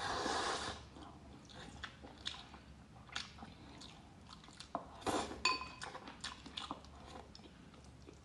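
A woman taking a mouthful of rice and braised pork belly from a glass bowl, a loud scooping bite at the start, then chewing with soft clicks and smacks of the mouth. Chopsticks clink against the glass bowl about five seconds in.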